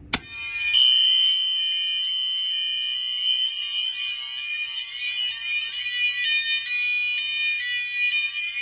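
A pull station clicking as it is pulled, then a whole fire alarm system sounding at once: several horns and electronic tones layered together. Among them are a steady high tone, a repeating rising whoop from a Potter horn strobe (a rebranded Gentex Commander 3) set on Whoop, and a Faraday 2881 alternating high-low.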